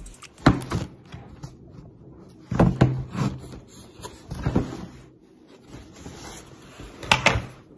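Cardboard shipping box being handled and turned over, knocking and thumping against hands and a surface several times, with rustling in between; the loudest knocks come about half a second in, around three seconds in, and as a pair near the end.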